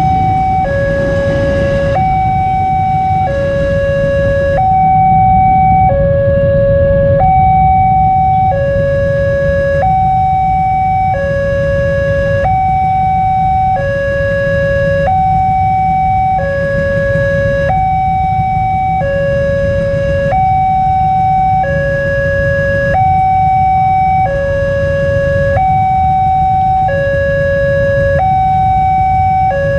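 Railway level-crossing alarm sounding, an electronic two-tone signal that alternates between a lower and a higher tone, each held about a second, repeating steadily. It is the warning that a train is approaching or passing. A steady low rumble runs underneath.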